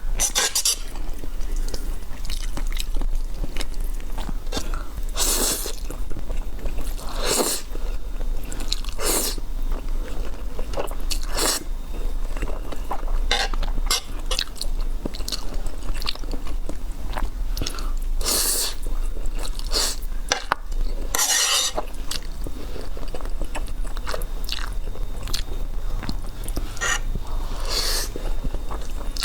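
Close-miked eating: irregular bites and chewing of food, with sharp clicky chewing sounds coming every second or so and no pause.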